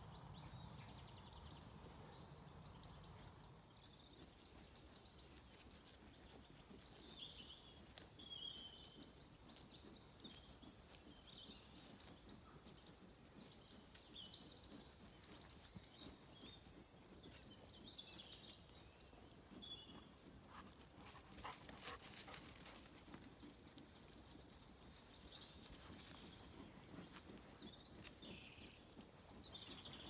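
Faint evening birdsong: several small birds chirping and trilling in short, scattered phrases. A few brief faint clicks come about two thirds of the way in.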